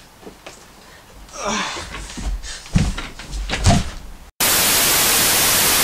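Soft rustling and two dull thumps, then a sudden loud burst of even TV-style static hiss about four and a half seconds in: a glitch-transition sound effect.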